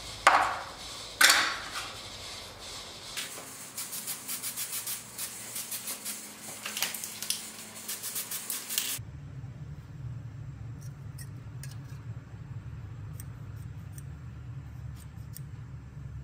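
Two sharp metallic clicks near the start, then several seconds of an aerosol spray-paint can hissing in quick short bursts over a small sheet-metal plate. After about nine seconds this gives way to a steady low hum with a few faint ticks.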